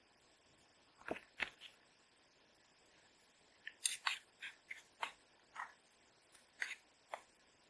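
A metal spoon scraping and clinking against the inside of a metal camping pot as thick rice and sauce are stirred, about two strokes a second from about halfway through, after a couple of sharp knocks about a second in.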